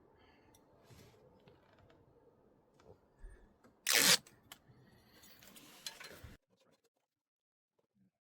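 Quiet handling noises and small clicks as a mounting plate is lined up by hand, with one short, loud scrape about four seconds in. The sound cuts off suddenly after about six seconds.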